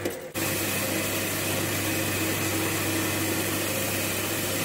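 Belt grinder running with a steel axe head held against the belt, grinding off paint: a steady hiss over the motor's hum. There is a short break a fraction of a second in.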